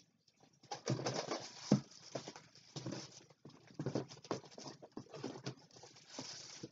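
Rustling, crinkling and light knocking in irregular bursts as items are rummaged through in a cardboard shipping box.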